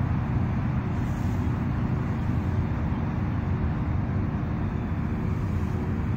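Steady low rumble of distant road traffic, with a faint steady hum over it.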